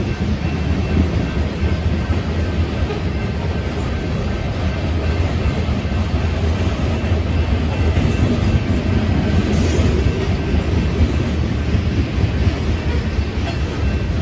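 Covered hopper cars of a BNSF freight train rolling past at speed: a steady, loud rumble of steel wheels on the rails.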